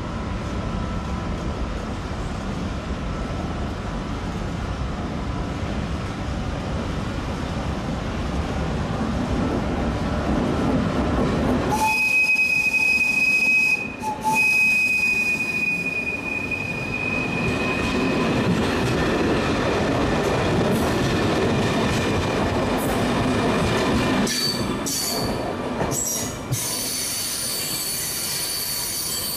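Electric multiple unit (class 560 / SM 488) rumbling steadily, then moving off through the station tracks with wheel squeal: a steady high squeal from about twelve seconds in, and more squealing with short breaks near the end.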